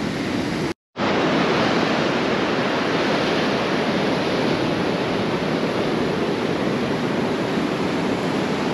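Steady rush of surf breaking on the beach, mixed with wind on the microphone. The sound drops out completely for a moment about a second in.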